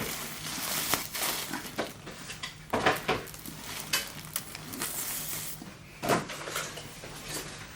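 Shopping bag and packaging being handled: rustling with scattered short clicks and knocks, a few sharper ones around three and six seconds in.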